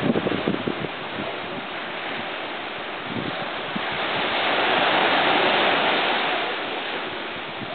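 Steady outdoor rushing noise with no distinct event. It swells for a few seconds about halfway through, then eases back, with a few soft low thumps near the start.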